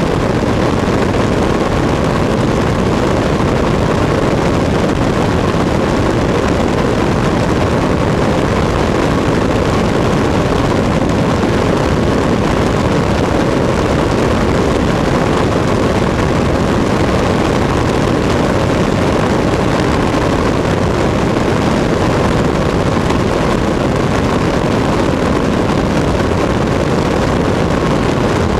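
Cessna 152's four-cylinder Lycoming engine and propeller running steadily in flight, heard from outside the fuselage together with a constant rush of air. The sound stays loud and even throughout, with no change in power.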